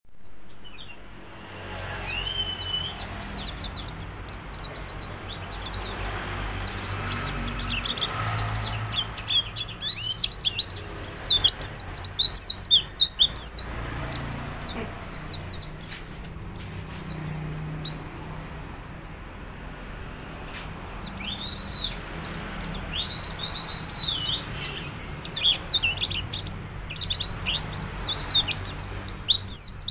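Caged white-eye (pleci) in full, busy song: rapid high chirps and twitters run on almost without a break. They come thickest and loudest in two long runs, one about a third of the way in and one building toward the end. This is the 'gacor' song kept as a lure to set other birds singing.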